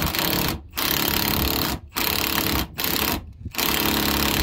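Cordless impact wrench hammering on a bolt at the centre of a combine's drive pulley, in about five bursts with short pauses between them.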